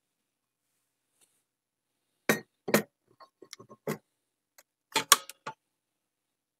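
Metal clunks and clinks as a Garrard 401 turntable's metal platter is lowered onto its spindle and settled in place. Two loud knocks come a little over two seconds in, then a run of light ticks, then a cluster of clunks near the end, the loudest of them all.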